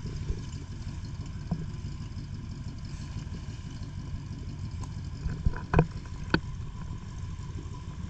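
Jeep engine idling steadily with a low rumble, with a few sharp knocks or clicks about two-thirds of the way through.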